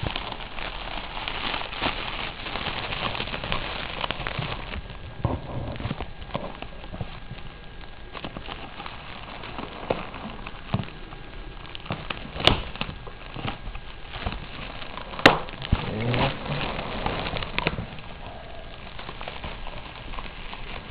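Bubble wrap crinkling and rustling as it is handled and pulled out of a cardboard box, dense at first, then in scattered bursts, with two sharp snaps past the middle.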